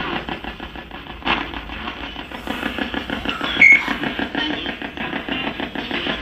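Spirit box sweeping through radio stations and played through a speaker: fast-chopped radio static with snatches of broadcast sound, with a brief louder squeak about midway.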